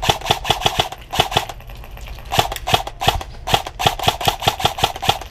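Airsoft gun firing in quick runs of sharp shots, about five a second, with a pause of about a second near the middle.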